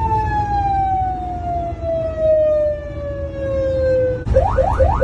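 Fire truck siren winding slowly down in pitch in a long falling wail. About four seconds in it switches abruptly to a fast yelp of quick rising whoops, about four a second. A steady low rumble runs underneath.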